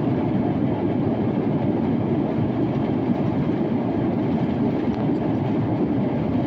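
Cabin noise of an Airbus A350-900 on its takeoff roll at full thrust: the steady roar of its Rolls-Royce Trent XWB engines mixed with the rumble of the wheels on the runway, heard from inside the passenger cabin.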